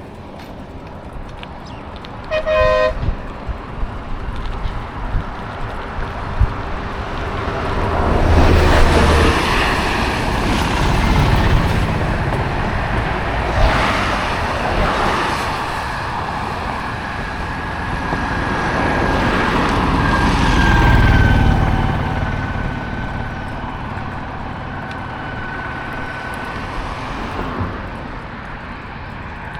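Road traffic, with vehicles passing one after another and swelling loudest several times. A vehicle horn toots briefly about two seconds in.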